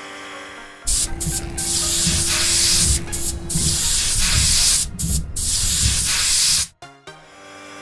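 Cartoon car-wash sound effect as the rotating brush scrubs the car: a loud hiss like spraying water over a low rumble. It starts about a second in, dips briefly a few times and cuts off suddenly near the end, with soft background music before and after.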